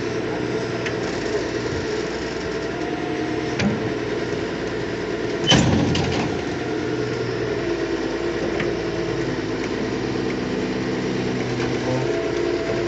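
An earthmover's diesel engine runs steadily under load while it is loaded onto a truck. About halfway through there is one loud, sharp metallic knock.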